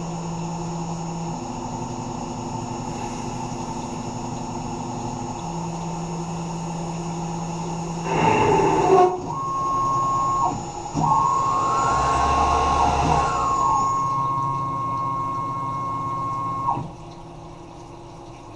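Tormach 1100 CNC mill running as a lathe during a turning job: steady machine tones that shift pitch every few seconds, a louder burst of cutting noise about eight seconds in, then a high steady whine broken by short gaps, until the machine goes quiet near the end.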